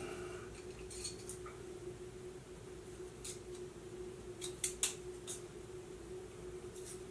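A few brief, faint scrapes of sandpaper on a metal combination square, taking down high spots to bring the out-of-square tool back into square. A faint steady hum sits underneath.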